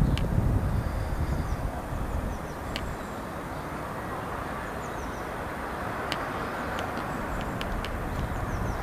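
Steady outdoor background noise with a low rumble that fades about two seconds in. Faint high bird chirps and a few sharp isolated clicks sound over it.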